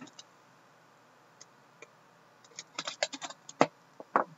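Hands handling a shrink-wrapped cardboard trading-card box: scattered light clicks and crackles, a few at first and then a quick cluster about two and a half seconds in.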